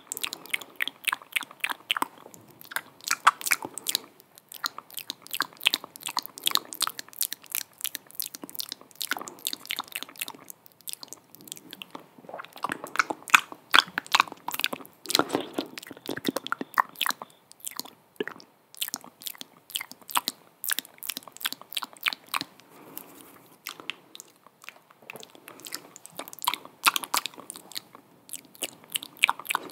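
Close-miked ASMR mouth sounds: rapid, irregular wet clicks and smacks of lips and mouth, in runs with a few short pauses.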